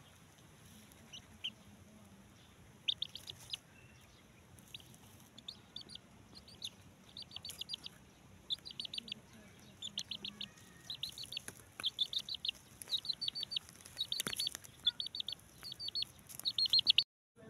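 A young chicken peeping in quick runs of short, high chirps that come more and more often, while it pecks at food.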